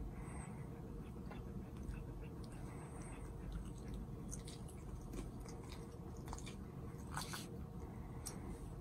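A Shiba Inu chewing and biting a small plush toy: scattered soft wet clicks and crunches, with a louder flurry about seven seconds in.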